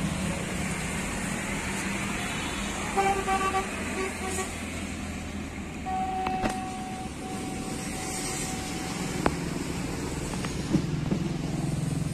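Steady rumble of road traffic, with vehicle horns honking: a short honk about three seconds in and a longer one from about six seconds in.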